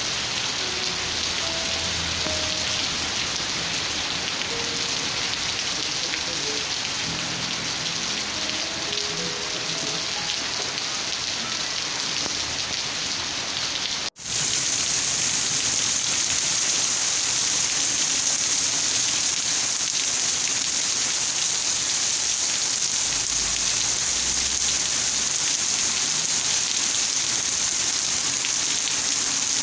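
Steady rain falling, an even hiss, with soft low melodic notes faintly under it in the first half. About halfway through, the sound drops out for an instant and the rain returns brighter, without the notes.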